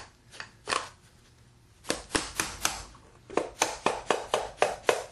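Sharp hammer taps on the end of a Franklin 3/4 hp electric motor's case, knocking the end bell loose to separate the case. A few blows at first, then a quick run of about five taps a second near the end.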